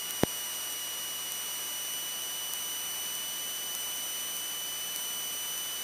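Steady hiss of an aircraft intercom audio feed, with faint steady high-pitched tones running through it and a single sharp click just after the start.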